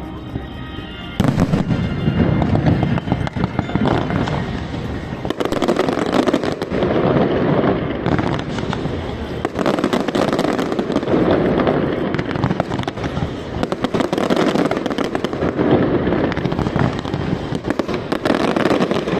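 Fireworks display: a dense, continuous barrage of overlapping bangs and crackling, growing suddenly louder about a second in.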